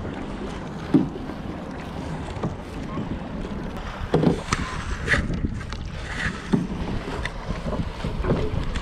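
Paddling a small boat on a lake: irregular paddle strokes and splashes every second or two over a steady low rumble of wind on the microphone.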